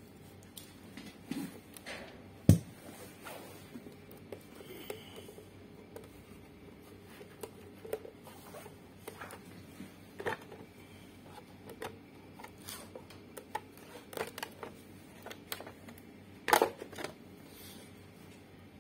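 Handling noise from opening the plastic front panel of a speaker cabinet: scattered light clicks and scrapes, one sharp knock about two and a half seconds in, and a short clatter near the end.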